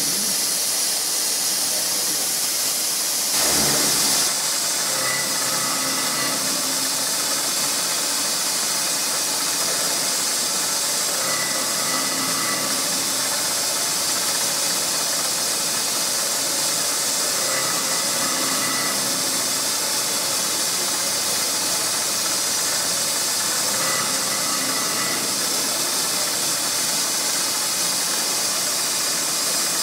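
Milling head of a TOS FUT machining centre cutting a steel Francis turbine runner blade: a steady, loud hissing machining noise, briefly louder about three seconds in, with a faint whine that comes and goes every five or six seconds.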